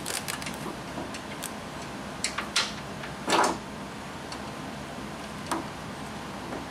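Scattered light clicks and knocks of metal parts being handled at the top of a Honda Civic's front strut tower while the new strut mount nuts are started by hand. A short, louder scraping rustle comes about three and a half seconds in, with a last single click near the end.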